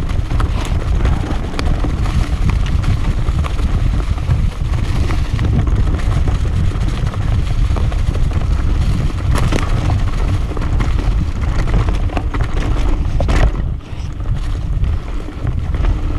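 Mountain bike rolling fast down a dirt forest trail: wind buffeting the camera microphone over the rumble of tyres and the rattle of the bike, with a few sharp knocks from bumps in the trail.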